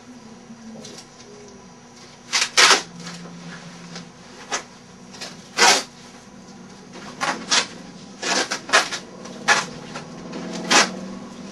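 Adhesive tape being pulled off the roll in short, sharp rips, about ten of them at irregular intervals starting about two seconds in, as the end of a sleeping bag is taped shut.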